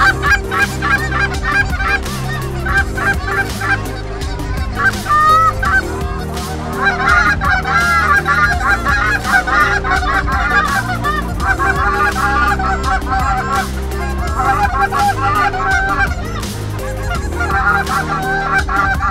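Canada goose honks and clucks, many in quick, overlapping succession and going on without a break.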